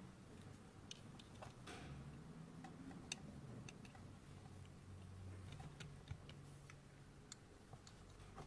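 Faint, scattered small clicks and ticks from a thin flat tool touching a model Lamborghini as it works at the vents, irregularly spaced with the sharpest about three seconds in, over a faint low hum.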